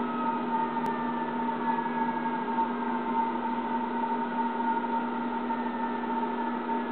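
A steady machine hum, with a fire engine's siren wailing faintly in the distance, its pitch sliding slowly down.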